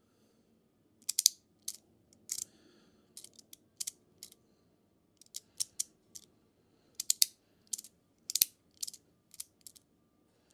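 3D-printed magnetic fidget slider being slid back and forth, its plates snapping together under the magnets in sharp, irregular clicks, some in quick pairs.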